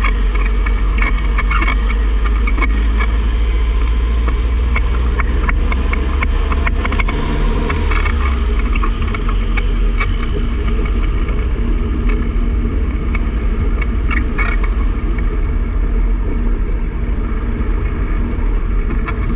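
Car on the move with a heavy low road and wind rumble, through which run frequent irregular sharp clicks and knocks from the 2006 Mazda 3's worn passenger-side inner CV joint: the sign of a bad CV axle, not the clutch or throwout bearing.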